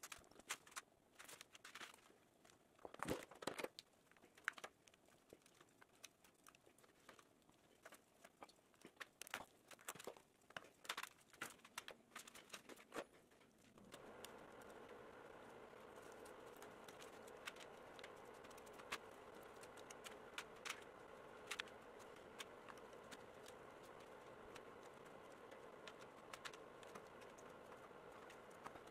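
Faint crinkling, rustling and tearing of hide and cardboard with scattered small clicks as a whitetail deer head is skinned with a knife. About halfway through, a steady low hum sets in beneath the handling sounds.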